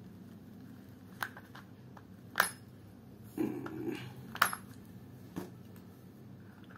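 Several sharp clicks and taps, the loudest about two and a half seconds in, as a hand works open the battery compartment of a battery-powered plush toy dog.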